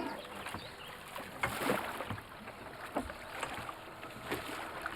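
A small rowboat moving through water, its oar strokes splashing and sloshing every second or so.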